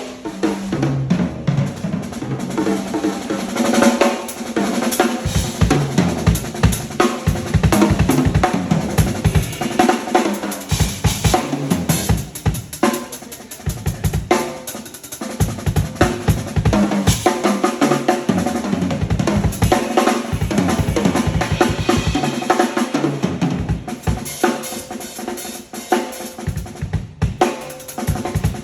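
A drum kit played continuously, with fast kick-drum and snare hits and rolls.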